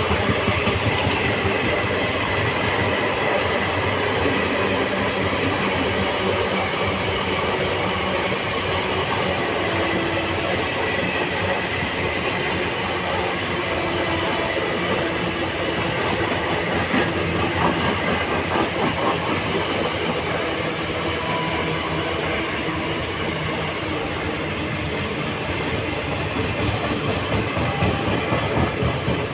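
Express passenger train rushing past at about 110 km/h, its coach wheels clattering over the rail joints in a fast, steady rhythm with a continuous rumble and rushing noise.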